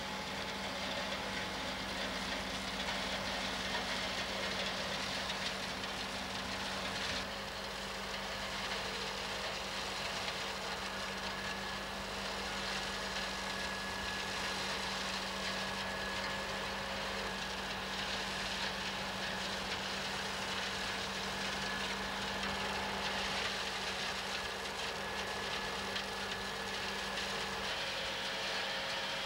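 Case IH 94 Series tractor running steadily, driving a flail hedge cutter that is cutting through a hedge. The sound is a dense, even mechanical noise over a constant low hum.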